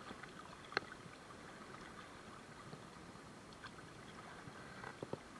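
Faint steady rush of river current around a wading angler, with a few small clicks about a second in and near the end.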